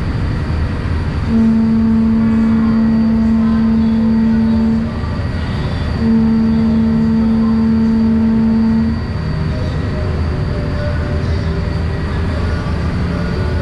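Ferry boat horn sounding two long, steady low blasts of about three seconds each, over the steady low rumble of the ferry's engine.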